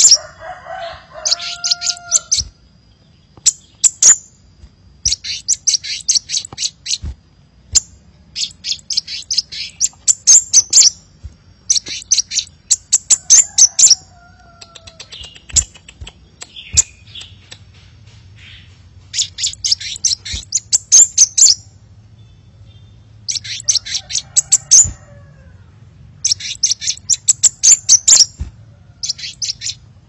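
Crimson sunbird song: rapid trains of high, sharp chips in bursts of a second or two, repeated with short gaps. A few fainter, lower slurred whistles come in between.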